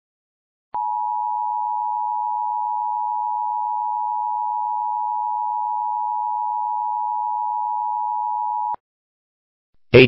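Emergency Alert System attention signal: a steady two-tone sine beep (853 Hz and 960 Hz together) that starts about a second in, holds for about eight seconds, and cuts off sharply. It is the alert tone that comes before an emergency voice message.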